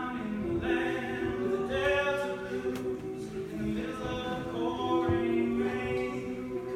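All-male a cappella group singing in harmony, with lower voices holding steady chords while the higher voices move.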